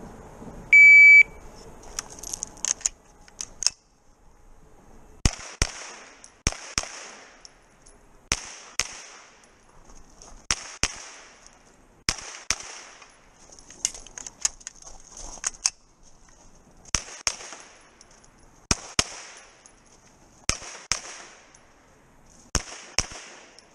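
Electronic shot-timer beep about a second in, then a pistol-caliber carbine firing rapid double-taps: pairs of sharp shots recurring every second and a half to two seconds as targets are engaged one after another.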